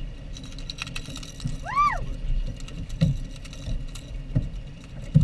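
Wind buffeting the microphone on a small boat on open water, with low thumps of water against the hull. There is a run of sharp clicks early on and one short high cry that rises and falls about two seconds in.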